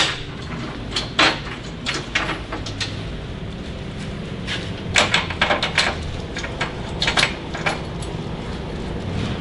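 Scattered metallic clicks and knocks as the cart's latch clamps are worked against the welder's base, with a quick run of them about five seconds in, over a steady low hum.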